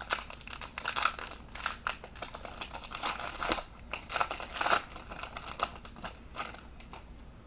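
A trading card pack's wrapper crinkling and tearing open, with the cards then handled: a run of irregular crackles, busiest in the first five seconds and thinning out after.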